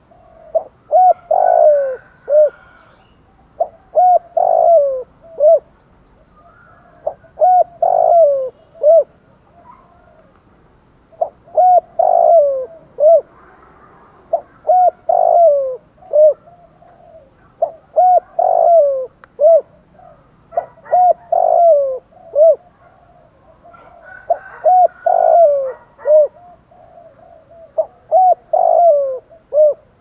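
Spotted dove singing its cooing song: phrases of several short, arching coos, repeated about every three to four seconds.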